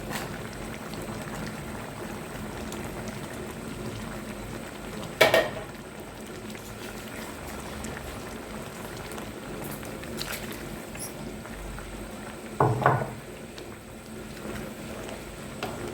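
Pot of lentils and eggplant bubbling steadily at the boil. Two sharp knocks, about five and thirteen seconds in.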